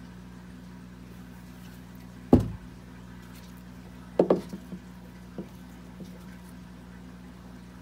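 Knocks of oak bark pieces being handled and set against a glass terrarium as they are pressed into expanding foam: one sharp knock about two seconds in, then a quick cluster of lighter knocks and taps a couple of seconds later.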